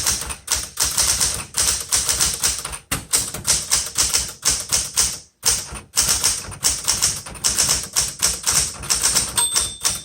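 Smith Corona Galaxie II manual typewriter being typed on at a brisk pace: a rapid run of sharp keystroke clacks, several a second, with two short pauses.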